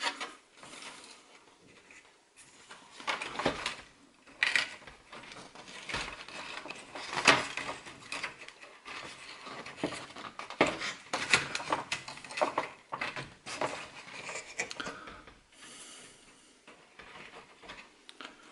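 Hands working a pleated insect-screen blind out of its plastic roof-hatch cassette: irregular plastic clicks, taps and scrapes with the rustle of the folded mesh, a few knocks standing out louder.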